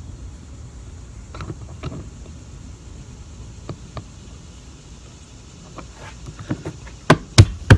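Scattered faint handling clicks over a low rumble, then near the end a run of sharp knocks, about three a second, from work on a trolling-motor quick release mounting bracket.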